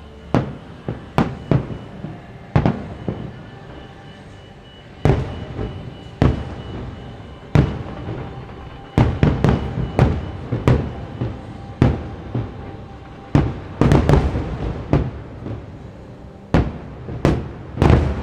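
Aerial fireworks shells bursting in a run of sharp booms at irregular intervals, about twenty in all. They bunch into quick volleys about halfway through and again about three-quarters of the way in, each bang trailing off briefly.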